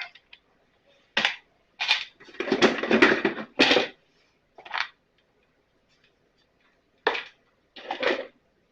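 Tools and small parts being picked up and set down on a workbench: a string of separate clatters and clunks, the busiest stretch a little past the middle.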